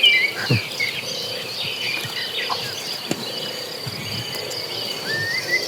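Insects droning steadily at a high pitch, with birds chirping over them, most at the start and again near the end.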